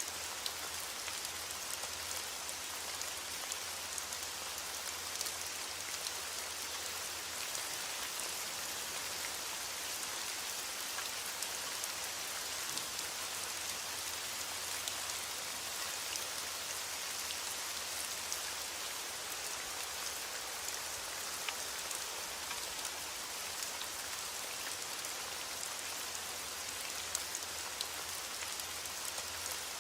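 Steady rain falling, an even dense patter with scattered sharper drop ticks.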